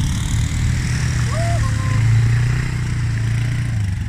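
ATV engine running at a steady pace, its note swelling a little around the middle and easing off shortly before the end.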